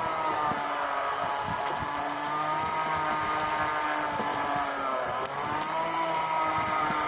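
Small boat engine running steadily, its pitch sagging briefly and recovering about five seconds in.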